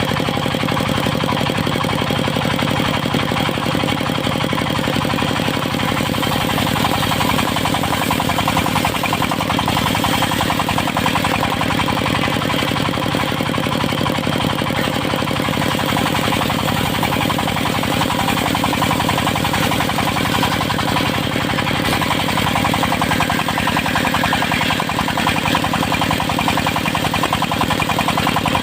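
Diesel engine powering a circular sawmill, running steadily with a fast, even knocking beat.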